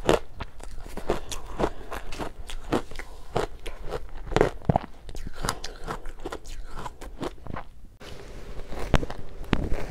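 Matcha-powdered ice being chewed with the mouth closed: a steady run of crunches, two or three a second. The crunches break off at about eight seconds in, and a few louder crackles follow near the end.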